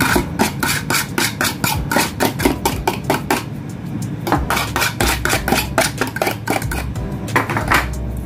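Metal utensil scraping and tapping against a plastic food container, knocking flaked cooked salmon out into a bowl. It makes fast runs of light clicks, several a second, that stop and start again.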